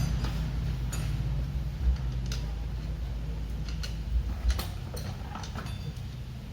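Scattered light metallic clicks and taps of hand tools on engine parts during an engine teardown, over a low steady hum.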